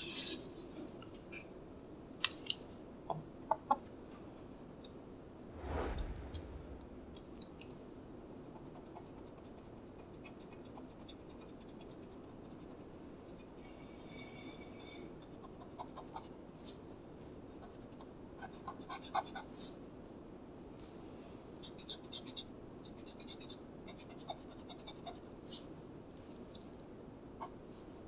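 Mechanical pencil lead scratching on drawing paper in short bursts of quick strokes, with a soft thump about six seconds in.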